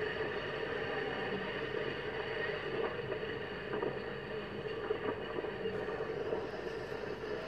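Sea surf breaking on a sandy shore: a steady rush of waves with small swells in loudness.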